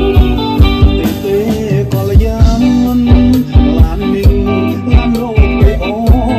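Band music with a steady drum beat, guitar and a wavering melody line.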